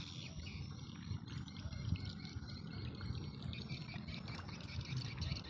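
Wind buffeting the microphone in an open field: a low, uneven rumble over a faint steady hiss.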